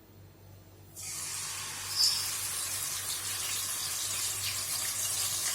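Marinated mutton mince hitting hot oil in a pan: quiet at first, then about a second in a sudden sizzle starts and carries on steadily, with a brief sharp click shortly after.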